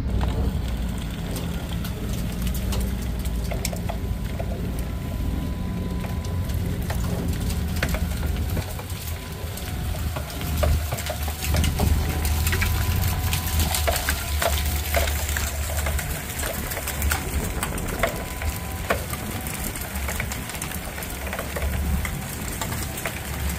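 Pickup truck engine running with a tailgate salt spreader throwing granules onto wet, icy pavement. The engine gives a steady low hum, and a dense patter of salt pellets hits the ground and metal, with a faint steady whine over it.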